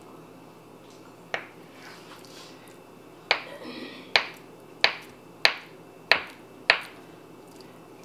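Kitchen knife cutting through a block of tofu and knocking on a bamboo cutting board. One sharp knock comes about a second in, then six more at a steady pace, about one every two-thirds of a second.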